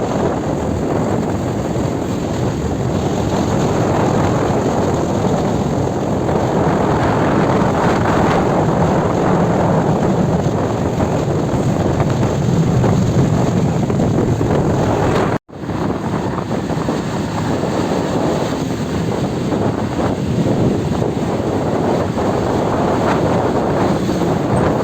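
Wind rushing over the microphone on a moving motorcycle, a steady loud noise. It cuts out for an instant about fifteen seconds in.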